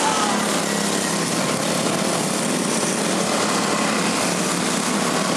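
Quarter midget race cars' small single-cylinder engines running steadily as the cars lap the dirt oval.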